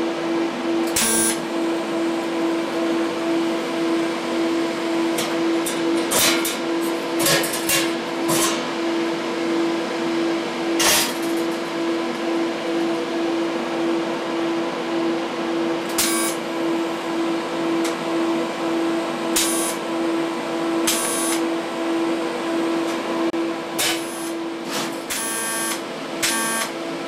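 TIG tack-welding of stainless steel sheet: a steady hum throughout, broken by about a dozen short, sharp arc strikes at irregular moments, several in quick succession near the end.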